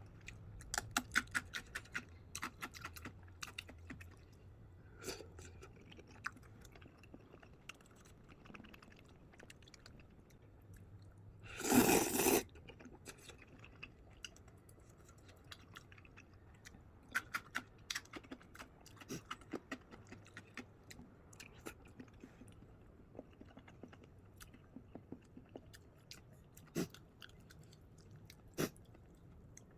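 Close-up chewing of crunchy food: clusters of crisp crunches, with one much louder crunching burst about twelve seconds in, and scattered single crunches near the end.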